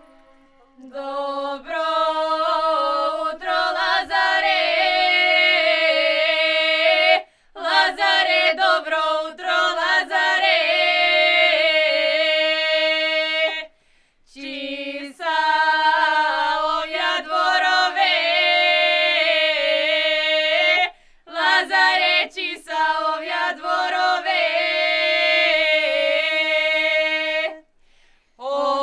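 A small group of young women singing a Macedonian lazarki ritual song unaccompanied, in long held phrases over a steady held note, with short breaks between the verses.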